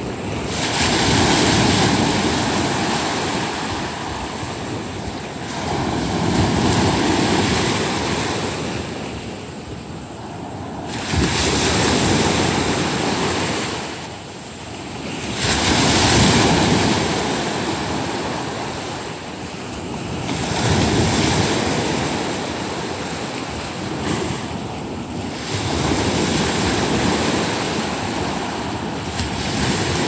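Sea waves breaking and washing up the shore in slow surges. About six swells rise and fall, roughly five seconds apart.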